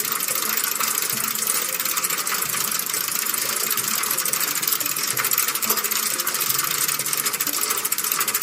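Sound-effect playback: a steady, rapid mechanical clattering made of dense, fast clicks, mostly high-pitched, with faint low tones underneath.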